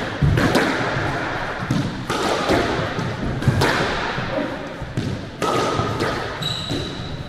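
Squash rally: the ball struck by rackets and smacking off the court walls in a series of sharp, echoing hits, with a brief high squeak near the end.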